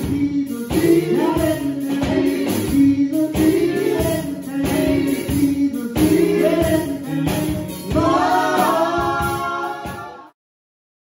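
Gospel song with singing voices over a steady beat. It cuts off suddenly about ten seconds in.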